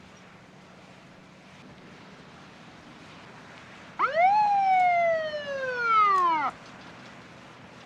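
Police car siren giving a single wail: the pitch shoots up about four seconds in, then slides slowly down for a couple of seconds and cuts off abruptly, the kind of short burst used to pull a car over.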